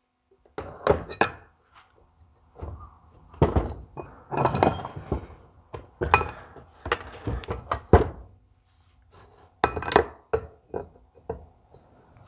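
Metal tools knocking and clinking on a diesel injection pump being taken apart: irregular hammer taps and metal-on-metal clinks, some of them ringing.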